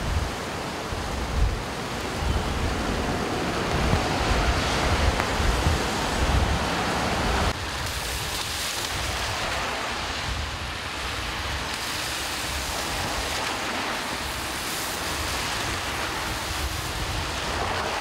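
Storm wind buffeting the microphone over rushing floodwater. After a cut about seven and a half seconds in, it gives way to a steadier hiss of rain and cars on a wet road.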